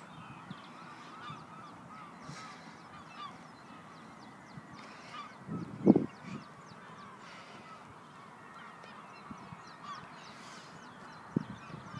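A flock of waterbirds calling without a break, many overlapping short calls. A brief low bump about six seconds in is the loudest sound.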